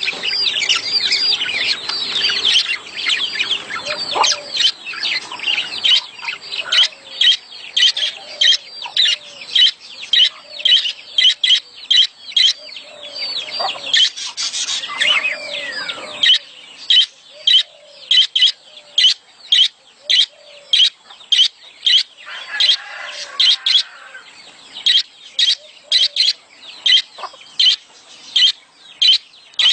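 Budgerigars in breeding condition chirping and chattering rapidly, the high calls packed close together and then settling into sharp chirps about two a second. Softer, lower notes repeat underneath.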